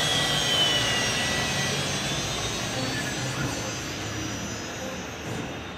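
CNC router running, its spindle giving a high whine over a steady rushing machine noise; the whine sinks slightly in pitch in the first two seconds and the whole sound fades gradually.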